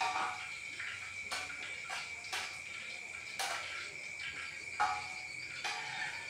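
A cricket's steady high trill, with knocks and clinks of a cooking utensil against a pan about once or twice a second.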